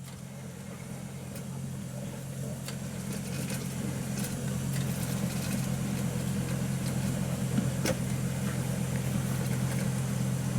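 4x4's diesel engine running under load at a steady pitch, rear differential lock engaged, as it works the vehicle out of deep mud; it grows gradually louder, with a few faint knocks.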